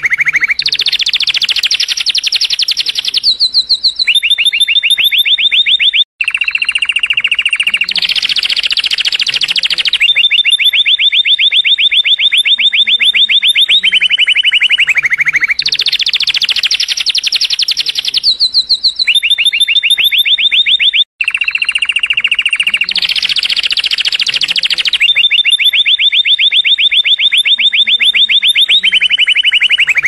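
Domestic canary singing: long, fast rolling trills of rapidly repeated notes, switching every few seconds from one trill to the next and between higher and lower pitches, with two very short breaks.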